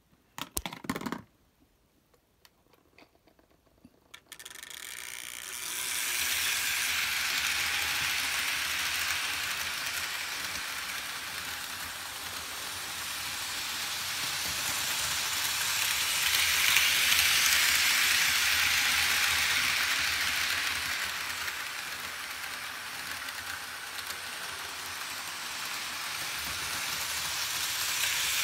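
Märklin HO model train running on metal M-track: the E424 electric locomotive's motor and the passenger cars' wheels make a steady rattling hiss. It starts about four seconds in, builds as the train gets under way, and swells as the train passes close. A few sharp clicks come in the first second.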